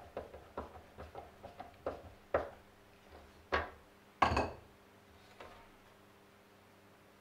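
Small clicks of a screwdriver turning the screws that hold a plastic handle on a hand saw, then a few louder knocks as the screwdriver is laid down on the wooden bench and the steel saw is handled. The loudest knock, about four seconds in, has a short ring.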